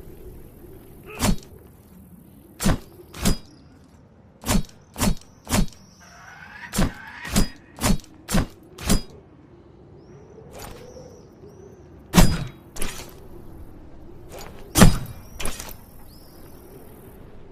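Spear sound effect: a run of about fifteen sharp, short hits, some in quick groups of two to five, over a faint steady hum.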